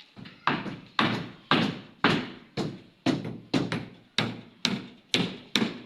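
Steady hammering on a construction site: about eleven hard blows, roughly two a second, each ringing out briefly.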